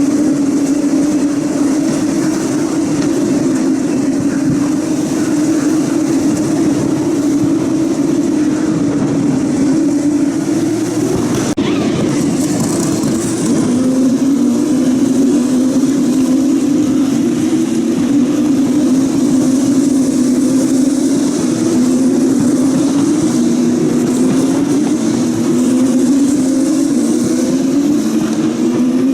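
Formula 2 cars' 3.4-litre turbocharged V6 engines running loud and unbroken. An abrupt break comes about twelve seconds in, and after that the engine pitch climbs and drops back again and again as the cars change up through the gears.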